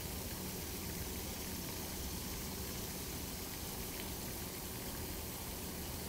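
Steady rush of a fountain's falling and splashing water, with a faint steady low hum underneath.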